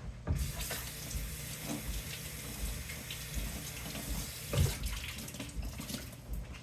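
Tap running water into a sink in a steady rush, starting suddenly just after the start and easing off near the end, with a single thump about four and a half seconds in.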